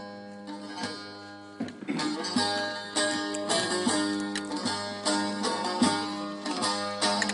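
Instrumental music: a plucked string instrument picks a melody over a sustained low note. It is quieter for the first second and a half or so, then comes in fuller with sharp plucked notes.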